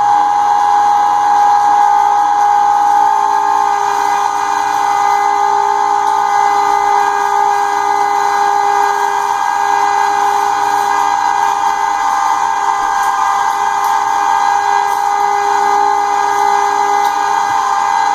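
Cabela's Carnivore half-horsepower electric meat grinder running steadily with a high, even whine while grinding partially frozen pork shoulder.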